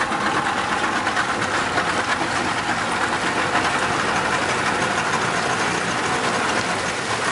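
A small tour motorboat's engine running steadily as the boat moves along, mixed with the noise of water.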